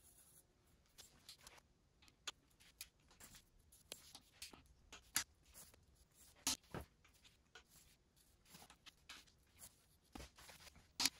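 Faint scratching and tapping of a marker on the steel heads of crankshaft main bearing bolts as a line is drawn on each, with scattered small clicks and a few sharper taps, the loudest near the end.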